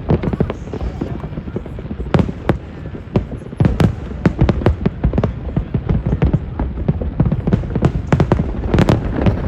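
Aerial fireworks going off in rapid succession, a dense run of bangs and crackles that thickens about four seconds in and again near the end.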